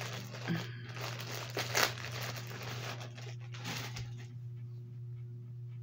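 Clear plastic wrapping crinkling as a skein of yarn is handled and pulled from it, in several rustles over the first four seconds, then quieter.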